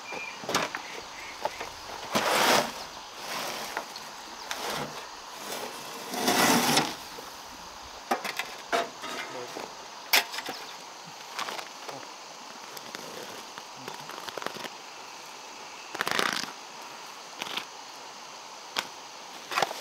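Handling noise as a wheelbarrow and a cement sack are moved beside a sand pile: a few short bursts of scraping and rustling among scattered light knocks.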